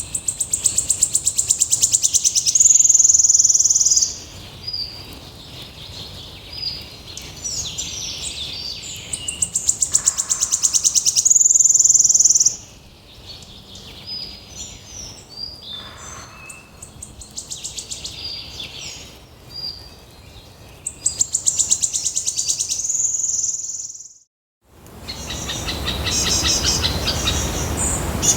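Songbird singing the same high-pitched phrase three times, each a fast trill of notes ending in one long high note, with softer chirps between. Near the end, after a brief silent break, a different bird's rapid, repeated chattering begins.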